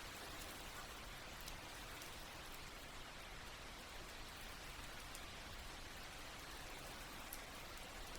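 Steady soft rain falling, an even hiss with scattered faint drop ticks.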